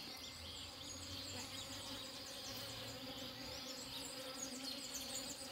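Bees buzzing steadily as they forage for pollen on mustard flowers, a low continuous drone, with faint high chirping in the background.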